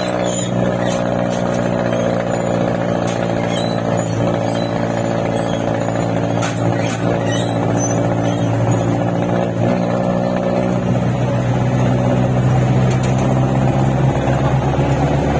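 Jeepney's diesel engine running steadily as it drives, heard from inside the jeepney, with occasional short clicks and rattles.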